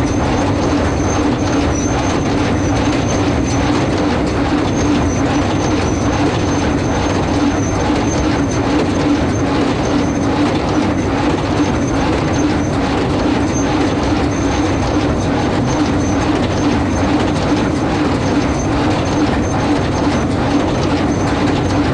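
Farmall 460 tractor running steadily under load while pulling a New Holland 269 square baler, the baler's moving parts clattering in a continuous rhythm over the engine.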